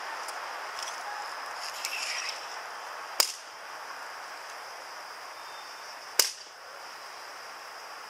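Two sharp cracks about three seconds apart, the first about three seconds in: the Evzone ceremonial guards striking the marble paving in their drill as they halt at their posts.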